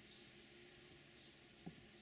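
Near silence: a faint steady outdoor background, with a single soft knock near the end.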